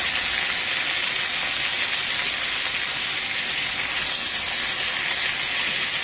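Fresh curry leaves and mustard seeds sizzling in hot oil in an aluminium kadai, a steady hiss, while a slotted ladle stirs them. This is the tempering (chhaunk) being made for coconut chutney.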